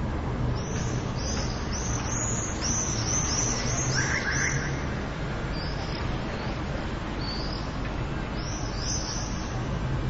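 Swallows calling in quick runs of high, sweeping chirps: about a dozen in the first half, then a few more near the end. Under them runs a steady low rumble of city traffic.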